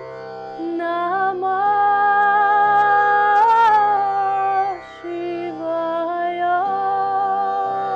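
Indian-style devotional music: a steady drone under a slow melody of long held notes that glide between pitches.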